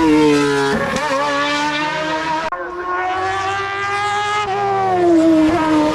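Racing car engine at high revs on a hill climb. Its pitch drops in the first second, holds steady, then falls again near the end.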